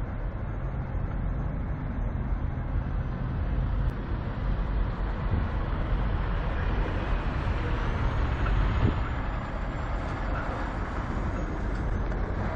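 Semi truck diesel engine idling: a steady low rumble.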